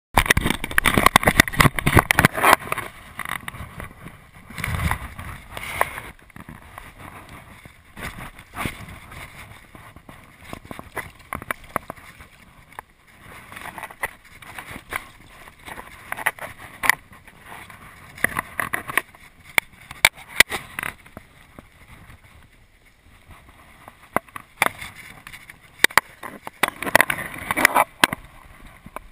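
Fast river water rushing and splashing around a wading angler, with irregular splashes, knocks and handling noise while a fish is landed in a net. It is loudest and busiest in the first few seconds and again near the end.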